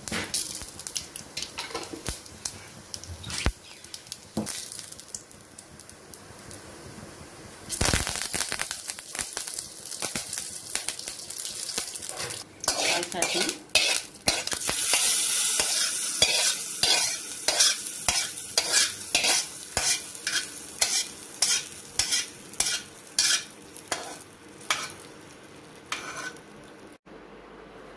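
Mustard seeds and urad dal sizzling and crackling in hot coconut oil for a tempering, with many sharp pops. The sizzling gets louder about halfway through.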